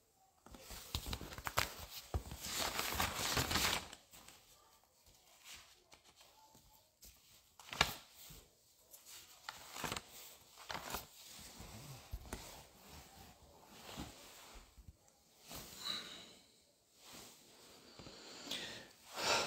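Handling noise from a phone being moved about close to its microphone: irregular rustling with several sharp knocks, loudest for a couple of seconds near the start.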